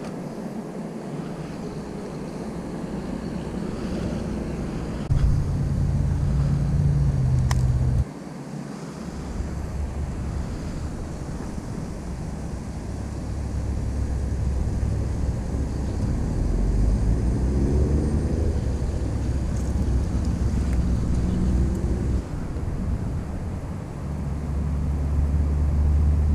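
Wind buffeting an outdoor camera microphone, a low rumble that surges in gusts and cuts in and out abruptly.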